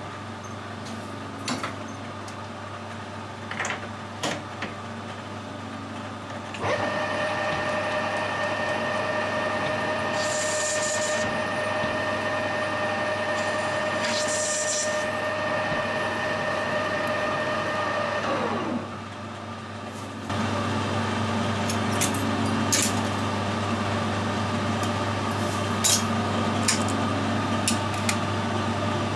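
Metal lathe running with a bar of 303 stainless steel in the chuck: a steady whine from the drive that falls in pitch and dies away about two-thirds of the way through as the lathe slows, then a louder motor hum comes back. Scattered light clicks and two short high hissing bursts run over it.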